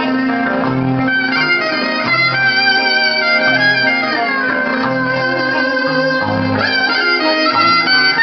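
Live Greek folk dance music: a violin plays a gliding melody over plucked-string accompaniment, a held low note and a steady bass beat.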